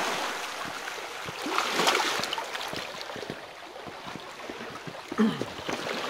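Small waves of Lake Superior washing and lapping onto a cobble beach, with scattered clicks and crunches of stones underfoot as someone walks along the shore. Near the end, a short low vocal sound is the loudest thing.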